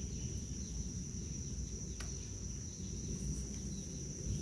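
A steady insect chorus trilling on one high note, with a faint click about two seconds in.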